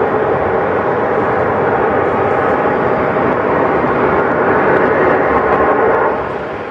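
Loud, steady droning hum with several tones stacked together, the unexplained "strange sound" heard over the city at night; it fades about six seconds in. It is muffled by fog, by the recordist's account.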